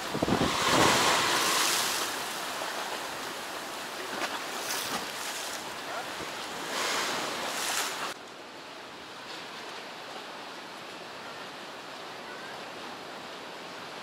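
Gale-force storm wind buffeting the microphone over choppy sea water, in gusty surges that are loudest in the first two seconds. About eight seconds in it drops abruptly to a softer, steady rush.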